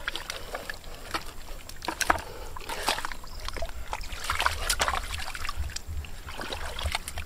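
Hands scooping and sloshing through shallow muddy water and soft mud, making irregular wet splashes and squelches.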